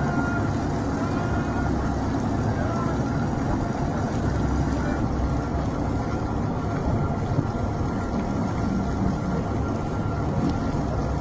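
Steady low rumble of a boat's engine running at sea, mixed with water noise.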